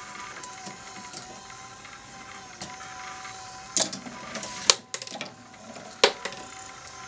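Toy marble run's motor-driven chain lift whirring steadily with a faint ticking. Three sharp clacks of marbles striking the plastic track come about a second apart in the second half.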